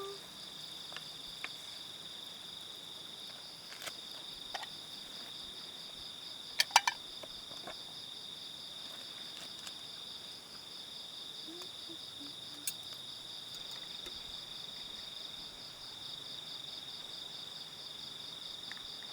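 Night insects chirring steadily at a high pitch in two bands, one of them pulsing rapidly. A few short sharp clicks or taps stand out, the loudest a quick pair about a third of the way in.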